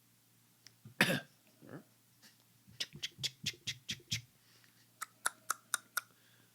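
A single short cough-like burst about a second in, then two runs of quick, evenly spaced clicks or taps, about five a second.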